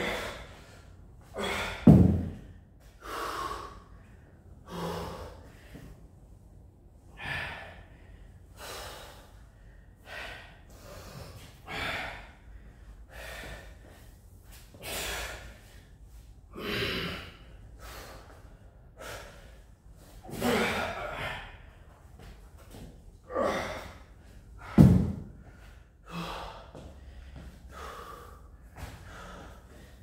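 A man breathing hard from exercise: short, forceful gasping breaths and exhales in an uneven rhythm, about one every second or two. Two heavy thumps stand out, one about two seconds in and one about five seconds before the end.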